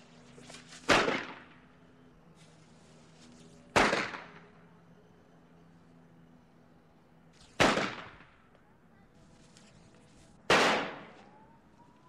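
Firecrackers going off one at a time: four loud, sharp bangs about three seconds apart, each dying away over about half a second, with faint hissing between them.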